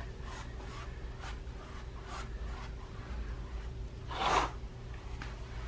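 Paintbrush dragging acrylic paint across a canvas: a series of short, soft scratchy brush strokes, with one louder stroke about four seconds in, over a faint steady hum.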